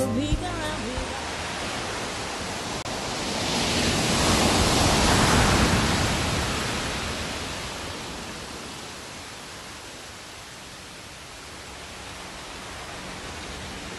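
Seaside outdoor ambience: an even rushing noise that swells a few seconds in, dies down, and rises again near the end.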